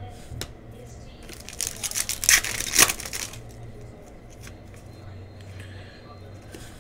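A stack of trading cards being flipped through and slid against each other by hand: papery rustling and sliding, loudest about two to three seconds in, over a steady low hum.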